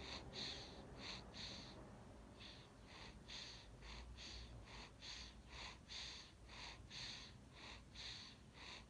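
A baby's quick, snuffly breathing, faint: a steady run of short hissy breaths about two a second, with one brief pause about two seconds in.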